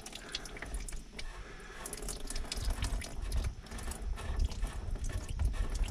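Engine oil thinned with diesel trickling and dripping out of a big-block engine's oil pan at the loosened drain plug. It gets louder from about two seconds in.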